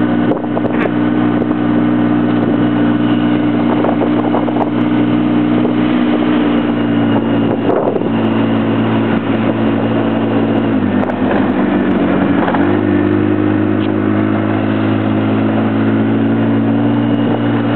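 Polaris ATV engine running steadily as the quad drives down a snowy street plowing. About eleven seconds in the engine note drops briefly, then picks back up a second or so later.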